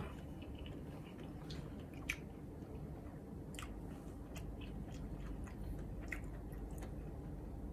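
Faint chewing: scattered wet mouth clicks and smacks, a few seconds apart, over a steady low hum.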